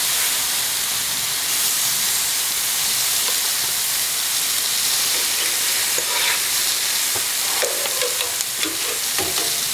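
Flat iron steaks sizzling on a very hot grill grate, a steady frying hiss. In the second half come a few light clicks and taps as metal tongs lay more steaks down on the grate.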